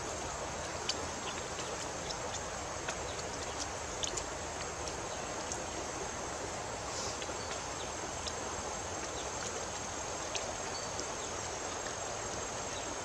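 Insects chirring in a steady high drone over an even background hiss, with scattered small clicks.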